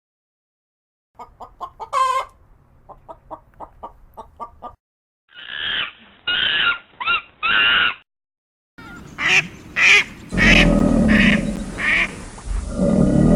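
A run of different animal calls, one short recording after another with silent gaps between them. First comes a quick series of short repeated calls, then four louder calls, then several more calls leading into a longer, noisier stretch near the end.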